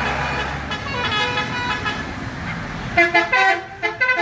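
Indonesian bus 'telolet' musical horn: held tones over the bus's engine, then from about three seconds in a quick melody of short notes jumping in pitch.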